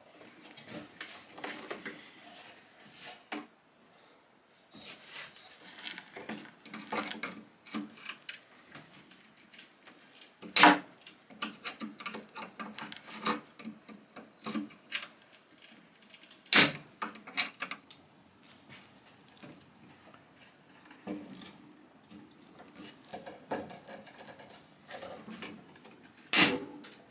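Pliers and a prying tool working at a nail under a loose strip of mahogany on a chest's top edge: irregular scraping and small clicks of metal on wood, with three sharp clicks spaced through, the last near the end.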